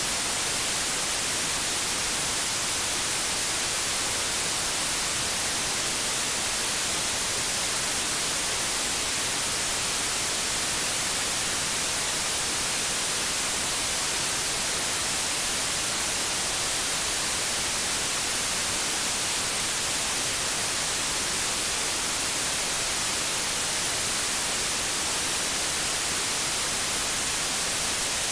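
Steady white noise: an even, unchanging hiss, brightest in the high treble.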